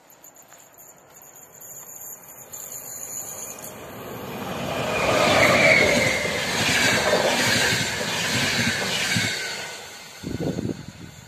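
A passenger train of České dráhy coaches passing over a level crossing. It grows louder, is loudest for a few seconds in the middle with a brief wheel squeal, then fades away. The crossing's classic warning bell rings underneath, and a few low thumps come near the end.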